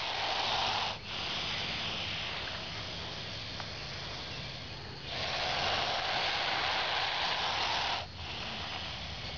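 Eastern hognose snake hissing in its defensive display: a loud hiss of about a second, a softer hiss for several seconds, then another loud hiss of about three seconds that stops sharply.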